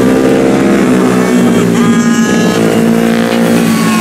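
Several racing motorcycle engines at high revs as a pack laps the circuit, their pitches overlapping and sliding up and down with the throttle. About halfway through, one engine climbs sharply in pitch as it accelerates.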